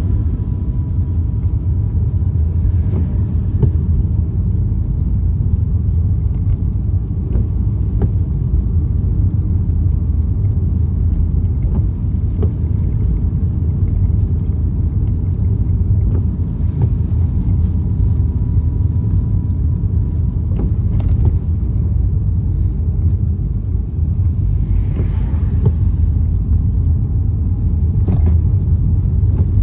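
Steady low rumble of a car driving on a wet road, heard from inside the cabin, with a few faint clicks.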